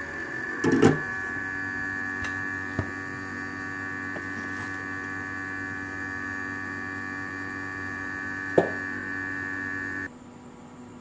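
Hot-air rework station's blower running with a steady hum, with a clatter about a second in and a sharp knock near the end. The blower then cuts off suddenly, leaving a fainter hum.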